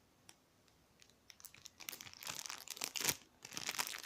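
Plastic packaging crinkling and rustling as it is handled, in quick irregular crackles from about two seconds in, after a few faint clicks.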